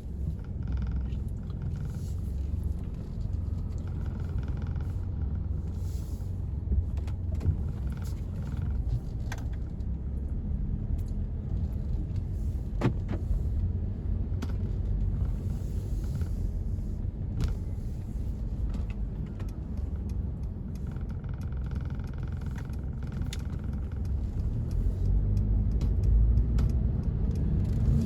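Mercedes-Benz W205 C200 being driven: a steady low engine and road rumble with a few faint ticks, growing louder near the end. The car is on a test drive after a transmission adaptation reset, so its automatic gearbox is relearning its shift pattern.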